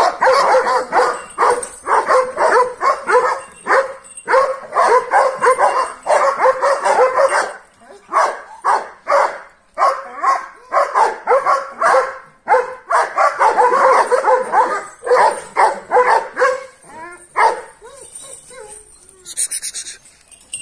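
Kangal shepherd dogs barking furiously at each other in rapid, nearly continuous volleys with brief pauses, a sign of aggression while held back on a chain. The barking dies down near the end.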